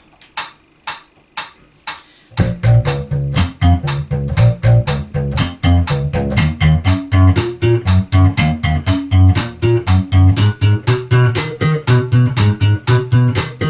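Sandberg MarloweDK electric bass played with the double-thumb slap technique. A few soft clicks come first, then about two seconds in a fast, even stream of short staccato slapped notes begins, the thumb striking down and up through minor-triad patterns.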